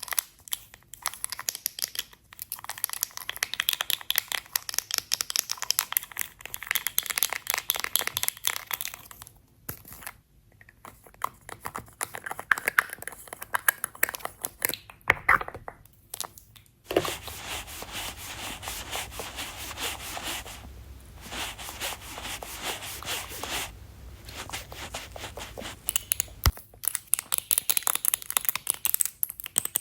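Close-miked ASMR makeup sounds: fast, crisp crinkling, scratching and tapping, layered densely, with a steadier rustling stretch past the middle.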